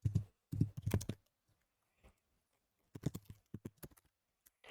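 Typing on a computer keyboard: two quick runs of key clicks, the second starting after a pause of nearly two seconds.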